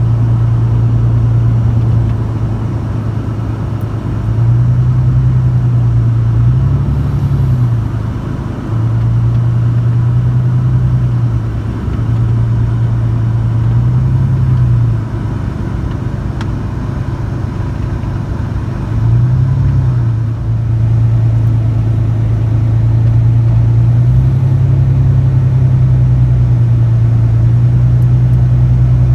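A low, steady engine drone whose pitch swells up and back down several times.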